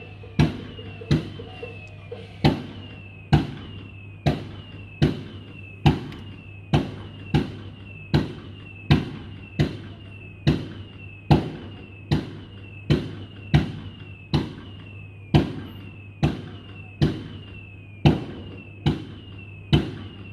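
A gong struck at a steady beat, a little faster than one stroke a second, each stroke ringing with a slight fall in pitch as it fades, over a steady low hum.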